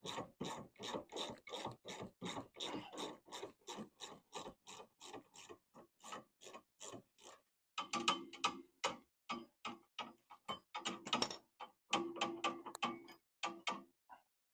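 Ratchet wrench clicking rapidly and evenly, about four or five clicks a second, as it backs off the top nut of a Volvo S40 rear sway bar end link. It stops briefly about seven seconds in, then resumes in shorter runs of clicks.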